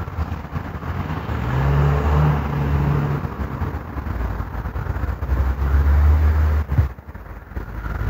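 Sci-fi flying-saucer sound effect: a low droning hum with a rushing swell, rising twice and cutting off abruptly about seven seconds in.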